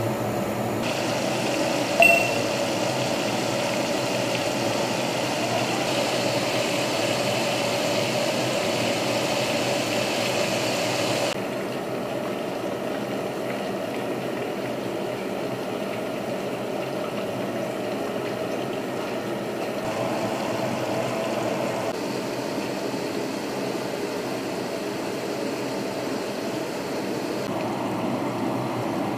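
Oil sizzling as starch-coated fish strips deep-fry in a small pot, with one clink of a metal wire strainer about 2 seconds in. The sizzle drops away about 11 seconds in, leaving a steady mechanical hum.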